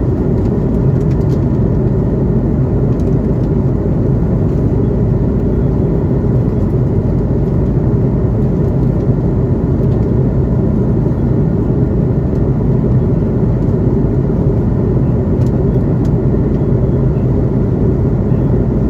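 Steady loud drone of an Airbus A330-200's jet engines and rushing air, heard from inside the passenger cabin, even in level and deep in pitch throughout.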